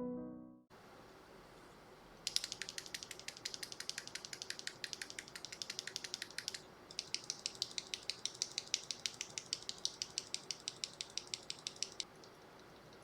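Bare mechanical keyboard switches in an Akko x Monsgeek switch tester, pressed and released rapidly without keycaps. First comes a run of quick clicks from an Akko CS Crystal switch, then, after a brief pause, a second run from an Akko CS Wine White switch.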